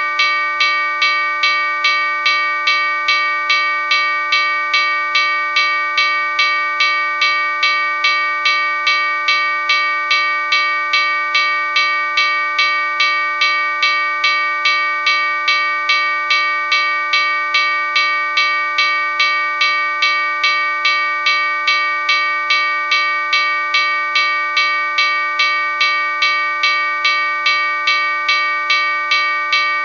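Locomotive bell ringing steadily, struck about twice a second, each strike ringing on into the next.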